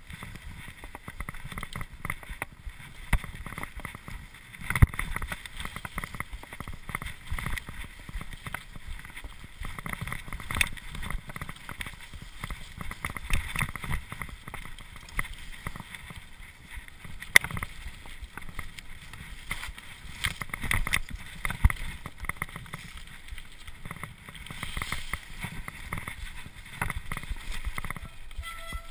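Cube LTD Pro mountain bike ridden fast over boardwalk planks and dirt trail: tyres rumbling and the bike rattling and clattering over bumps, with a few sharp, louder knocks, and wind buffeting the microphone.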